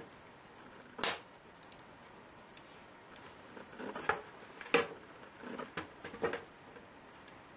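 Irregular clicks and light knocks of hard laptop parts being handled during disassembly: one sharp click about a second in, then a cluster of several louder knocks with brief rustling between about four and six and a half seconds.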